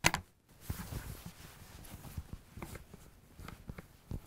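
A sharp click, then soft rubbing and small ticks from a break-barrel air rifle being handled, its barrel slowly broken open to cock it.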